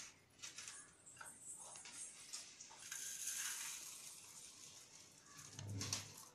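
Faint crinkling and small clicks of a plastic piping bag being squeezed as whipped cream is piped, with a short hiss about three seconds in and a brief low thump near the end.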